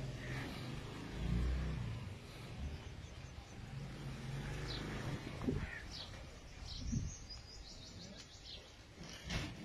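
Small birds chirping: a few single chirps, then a quick run of chirps that falls slightly in pitch, over a low rumble on the microphone. A short sharp knock near the end.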